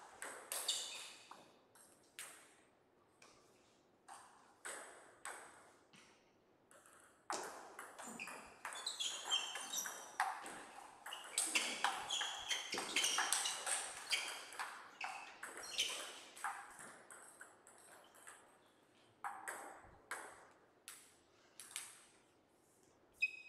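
Table tennis ball hitting bats and a Donic table: a few scattered bounces, then a fast rally of clicks for about ten seconds starting some seven seconds in, then scattered bounces again.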